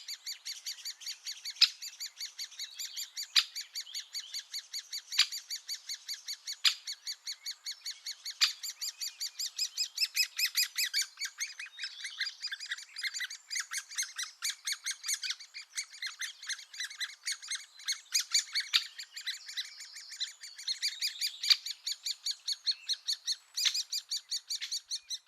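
Woodland birds calling: a fast, continuous high-pitched chattering, with a sharp single call repeating about every one and a half to two seconds.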